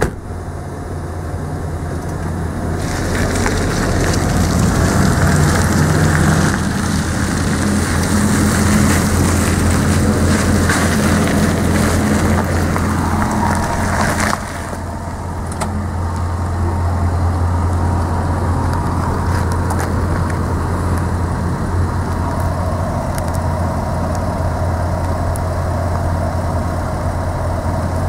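SUV engine running as the vehicle moves off at low speed, then idling steadily.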